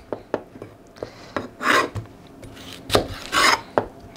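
Chef's knife cutting through fennel bulb quarters on a plastic cutting board: several short knocks of the blade on the board and two longer slicing strokes through the bulb.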